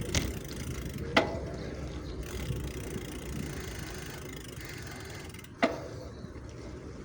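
Bicycle ride: a steady low rumble of wind and rolling, with two sharp clicks, one about a second in and one near the end.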